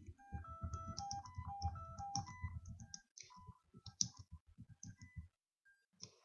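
Electronic sound played from a Pure Data patch: short tones hopping up and down in pitch like a little melody over a fast low pulsing, with sharp clicks. The low pulsing thins out about three seconds in and stops about two seconds later, and the loudest click falls about four seconds in.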